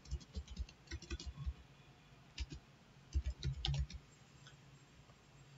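Typing on a computer keyboard: two quick runs of keystrokes, the second ending about four seconds in.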